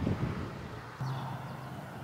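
Wind buffeting the microphone in low gusts. About halfway through it gives way to a steady low hum, with a faint bird chirp just after.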